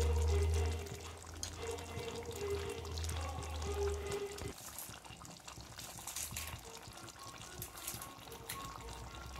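Lamb and potato curry simmering in a pot, its gravy bubbling with faint small pops. A steady low hum runs under it for the first four and a half seconds, then cuts off suddenly.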